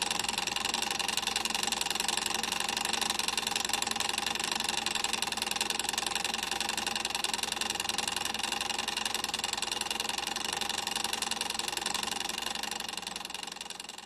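A machine running steadily with a fast, even pulse, like a small motor idling, fading out near the end.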